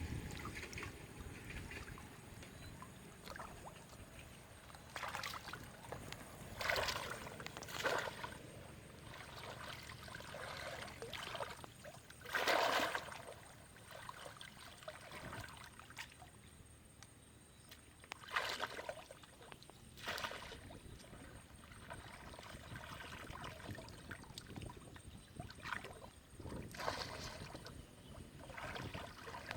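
Water splashing and sloshing in a series of short bursts, about seven in all, the loudest about halfway through, over a faint steady background.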